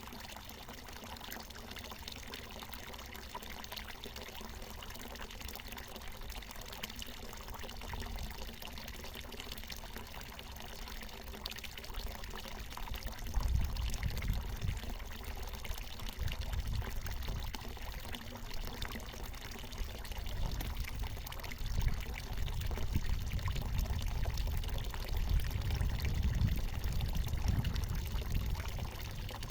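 Water from a natural mountain spring pouring down and splashing in a steady stream. From about halfway through, a low rumble comes and goes beneath it.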